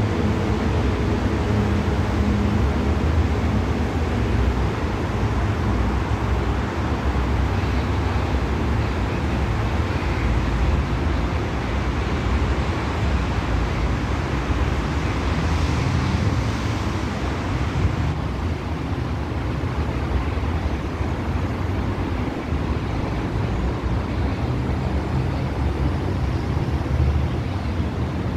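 A stationary test train's engine running at a steady low hum, mixed with a constant haze of outdoor noise.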